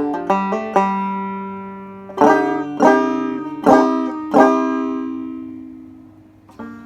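Solo banjo in G minor tuning closing a tune: a few picked notes, then four strummed chords from about two seconds in, each left to ring and die away.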